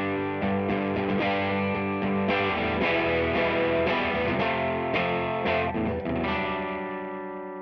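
Electric guitar played through an EarthQuaker Devices Westwood overdrive pedal, with the drive cranked and the volume rolled down, giving a lightly driven tone. Picked notes and chords, then a final chord struck about six seconds in and left ringing as it fades away.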